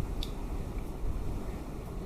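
Low rumbling noise on the microphone with a faint light click about a quarter second in, as the lock's small button-cell batteries are handled and taken out of their plastic cartridge.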